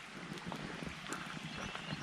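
Wood campfire burning: a steady crackle of small, irregular pops and snaps over the hiss of the flames.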